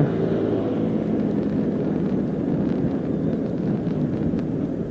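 Motorcycle running steadily while riding along, a constant engine rumble mixed with wind noise on the microphone.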